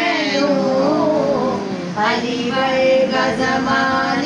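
Voices singing a Punjabi devotional song. A long held, wavering phrase gives way about halfway through to a new phrase.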